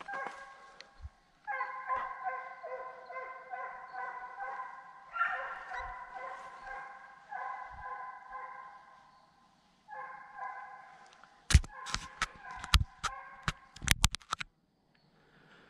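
A pack of deer hounds baying in long drawn-out, overlapping calls as they run a deer. Near the end, a quick run of sharp knocks and clicks from the camera being handled close to the microphone.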